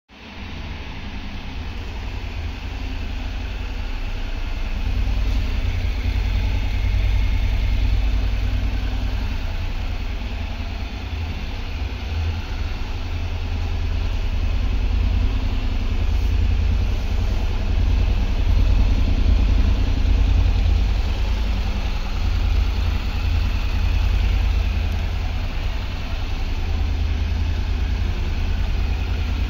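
Honda NC750X's parallel-twin engine idling steadily.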